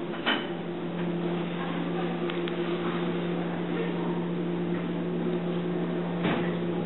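A steady low hum at one unchanging pitch over a faint hiss, starting just after the start.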